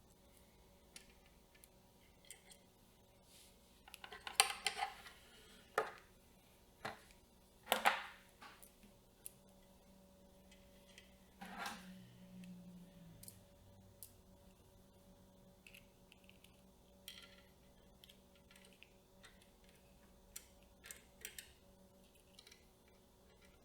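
Camera rig parts being handled and fitted: a series of sharp clicks, snaps and small knocks, busiest and loudest a few seconds in, with lighter ticks later and a short low hum that drops in pitch about halfway.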